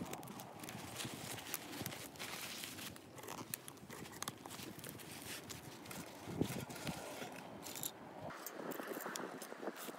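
Faint rustling and scattered light clicks of handling: gloved hands pushing a lit paper towel into a small steel stove, then wooden chopsticks being fed in as kindling near the end.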